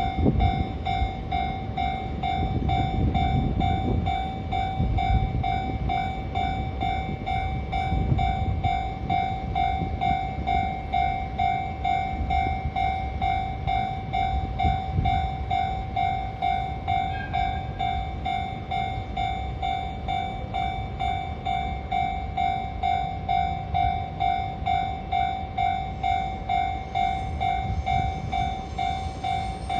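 Japanese level-crossing warning bell ringing steadily, a repeated electronic ding about twice a second. Under it a slow-moving freight train rumbles and clatters past, strongest in the first half and fading after about halfway.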